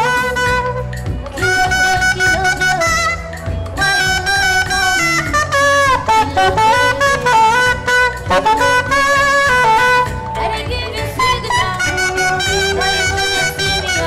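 Loud music: a melodic lead line with sliding notes over a steady bass.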